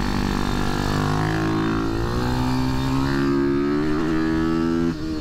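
Ohvale GP-0 190's air-cooled single-cylinder four-stroke engine heard from on board, pulling under throttle with its pitch climbing steadily, then dropping sharply near the end.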